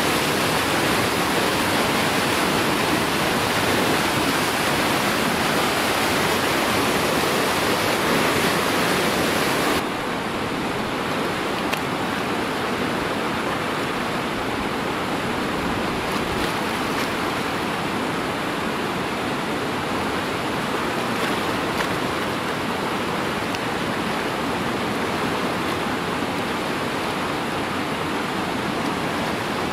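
Whitewater rapids rushing, a steady noise of churning river water. About ten seconds in it drops a little and turns duller.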